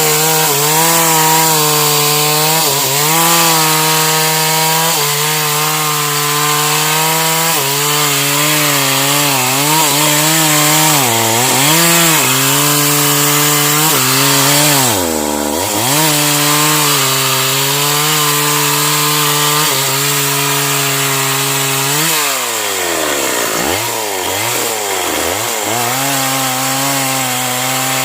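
Stihl MS 381 two-stroke chainsaw running at high revs and cutting into a sengon (albizia) trunk. The engine pitch sags and recovers as the chain bites. Revs drop deeply about fifteen seconds in, then fall and climb back several times in quick succession later on.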